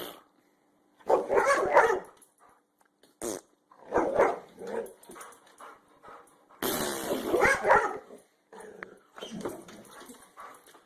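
Dog barking and growling in several short bursts spaced a second or two apart.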